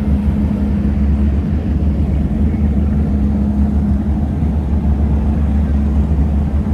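Motorboat engine running steadily at slow, no-wake speed: an even, deep hum with a steady tone in it.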